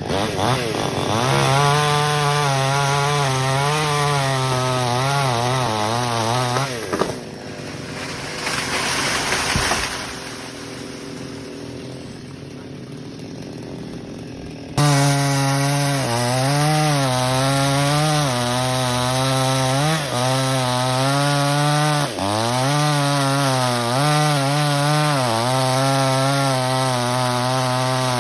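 Small chainsaw running at high revs while cutting teak branches, its pitch dipping and recovering as the chain bites into the wood. About seven seconds in it drops away to a much quieter sound for several seconds, then comes back suddenly at full revs about halfway through and keeps cutting.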